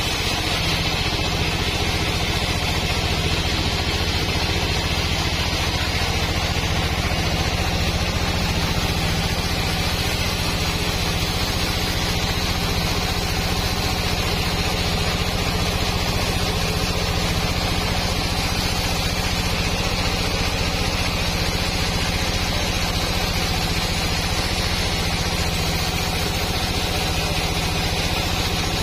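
Band sawmill running steadily, its blade sawing lengthwise through a squared hardwood log. It keeps an even, unchanging running sound with a steady low hum.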